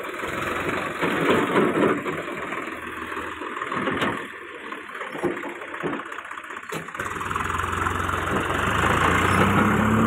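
Mahindra tractor's diesel engine running as it pulls a loaded trailer, with a steady engine note that grows louder over the last few seconds.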